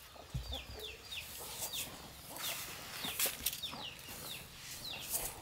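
Chickens calling: many short, high, falling chirps a few times a second, faint, with scattered light clicks and rustles.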